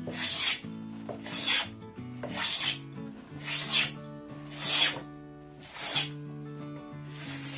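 Hand plane shaving a weathered aspen pallet board: a run of rasping strokes, about one a second, with soft background music underneath.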